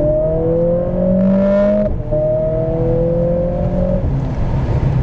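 Mercedes-AMG 45's turbocharged four-cylinder engine accelerating hard, heard from inside the cabin. The engine note rises, dips briefly at an upshift about two seconds in, climbs again through the next gear, and eases off about four seconds in.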